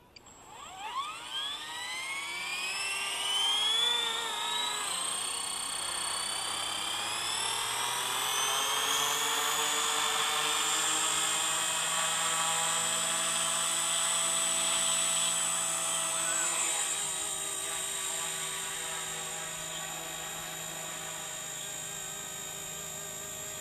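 Microheli S300C micro RC helicopter with a 2627 4200 kV motor and three-blade head spooling up from rest: a whine that glides steeply up in pitch over about eight seconds, then holds steady at flying speed. It grows a little quieter in the last few seconds as the helicopter lifts off.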